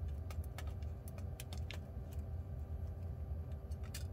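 Crumpled aluminium foil crinkling under a hand in short, irregular clicks, a few at a time with a small cluster near the end, over a steady low hum.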